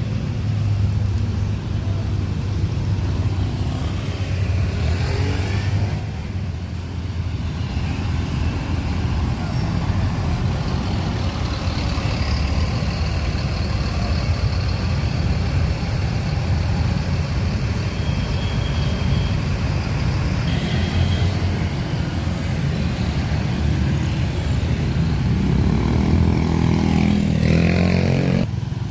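Heavy road-vehicle engine running steadily amid traffic noise. Near the end an engine revs up, its pitch rising.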